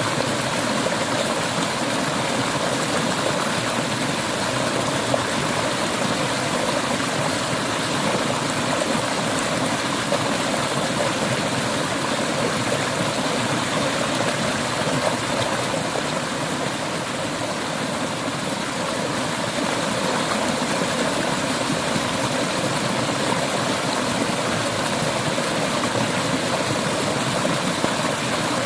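A clear mountain river flowing with a steady, continuous rush of water.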